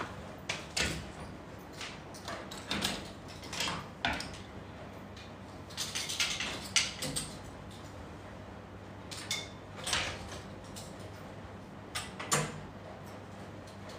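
Clothes and hangers being handled and moved on a shop rack: irregular clicks, knocks and light clatters, some with a brief metallic ring, over a steady low hum.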